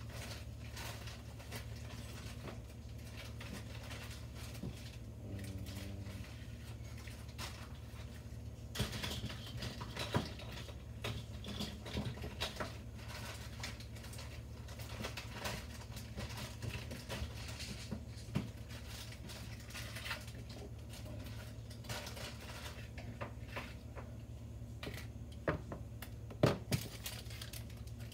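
Scattered light clicks, taps and rustling of small objects being handled, over a steady low hum, with a few sharper clicks near the end.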